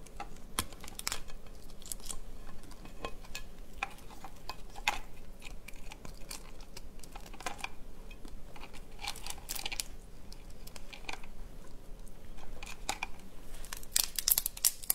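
Cooked crab being broken apart by hand: scattered cracks and crackles of shell and legs snapping, with wet tearing of the body. The cracking gets busier near the end as the shell body is pulled open.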